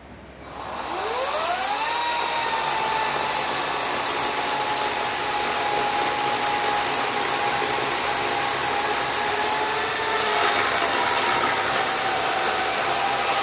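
Chainsaw speeding up to a steady high-pitched whine about a second in, then running at high speed, the pitch dipping slightly about ten seconds in.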